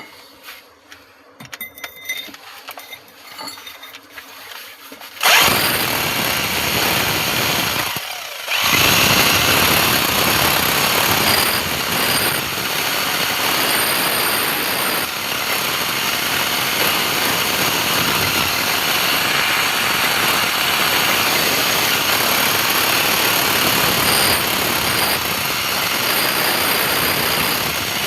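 A power tool starts suddenly about five seconds in and runs steadily, with a brief stop about three seconds later before it runs on; before it starts there are only a few faint clicks.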